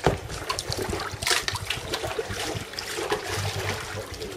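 Sea water splashing and trickling around sea kayaks as paddle blades dip and lift, in uneven splashes with a louder one about a second in.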